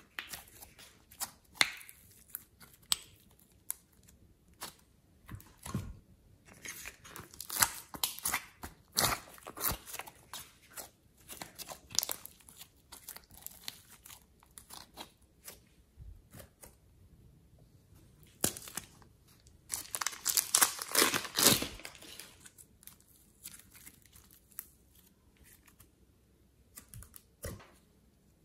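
Slime and soft modelling clay being squeezed and stretched by hand, giving irregular sticky clicks and pops with a dense, loud run of them about twenty seconds in.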